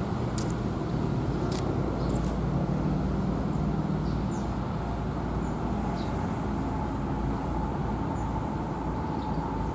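Steady road traffic and vehicle engine rumble, with a few faint short high chirps. A thin steady whine joins about halfway through.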